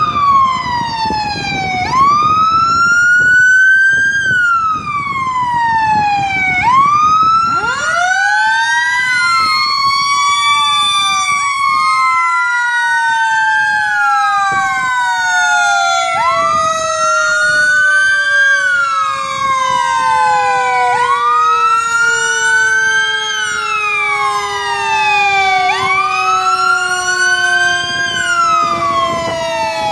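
Fire engine sirens wailing, slowly rising and falling in pitch. From about eight seconds in, a second wail overlaps out of step, and one long tone slides slowly down in pitch.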